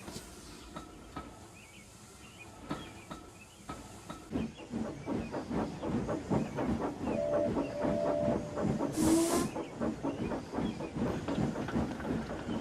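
Steam locomotive running: rhythmic chuffing and rail clatter that get louder after about four seconds, a brief steady two-note whistle in the middle, and a short sharp burst of hissing steam just after.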